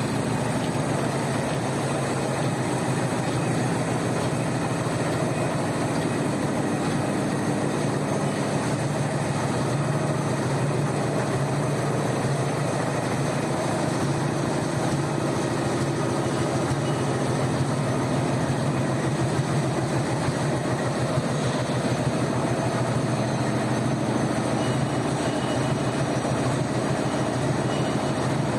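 Warp knitting machine running steadily at speed, a continuous fast mechanical clatter.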